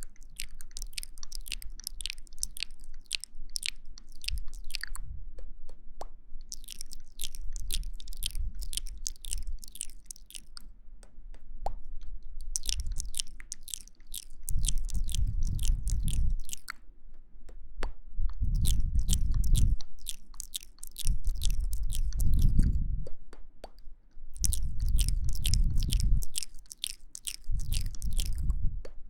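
Close-microphone ASMR trigger sounds: bursts of fine crackling clicks. From about halfway through, deeper rushing swells join in roughly every three seconds.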